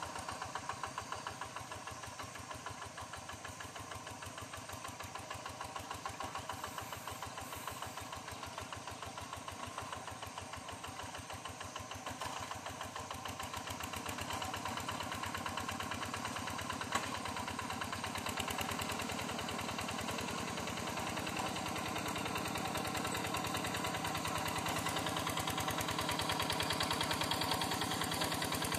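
Yanmar Bromo Pro walk-behind hand tractor's single-cylinder diesel engine running steadily with a rapid, even beat while plowing. It grows gradually louder as the tractor comes closer.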